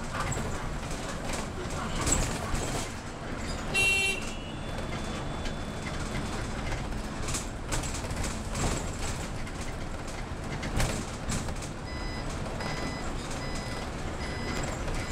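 City bus running, heard from aboard: steady engine and road noise. About four seconds in comes a short toot. From about twelve seconds an electronic warning beep repeats roughly three times every two seconds.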